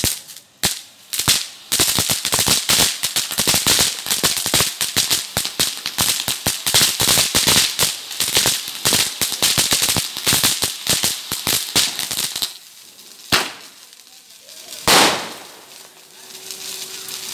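A 'Sun & Moon' fancy ground firework spraying sparks with a dense stream of rapid crackling pops for about ten seconds after a few single cracks. It ends with a sharp crack and then a louder burst, before fading to a soft fizz.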